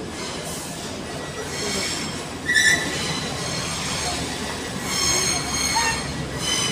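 CrossCountry Voyager diesel multiple unit arriving at the platform, a steady low rumble under high squealing from its wheels and brakes as it slows, with a sharp squeal about two and a half seconds in and a longer one near the end.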